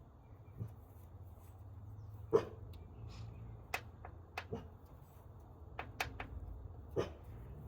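Scattered light clicks and knocks from hands handling metal engine parts, about eight in all, the loudest about two and a half seconds in, over a low steady hum.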